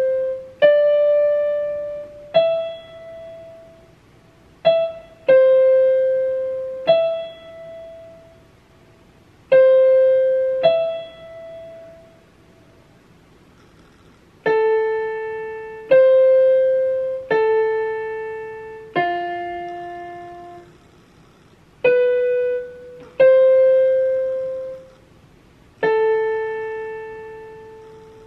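Electronic keyboard on a piano voice, played one note at a time in a slow, halting melody, each note struck and left to die away. There is a pause of about two seconds near the middle.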